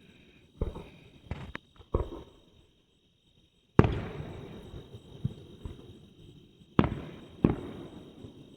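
Aerial fireworks bursting: a string of sharp booms, the loudest about four seconds in, each trailing off in a rolling echo.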